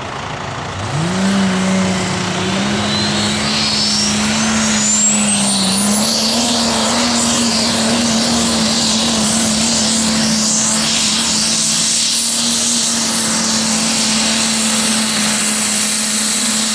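Competition pulling tractor under full power: its engine revs up sharply about a second in and is then held at high revs. Over it a high whine climbs steadily in pitch for a few seconds and then holds.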